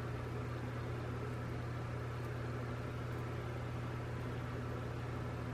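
Steady low hum with a faint even hiss: room tone from a fan or similar appliance running.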